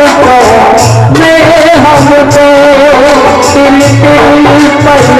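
Instrumental interlude of a Hindi devotional bhajan: a wavering melody line over a steady drum beat.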